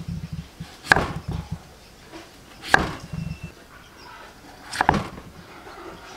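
Kitchen knife chopping through a peeled raw potato onto a thick wooden chopping board: three sharp knocks of the blade on the wood, about two seconds apart.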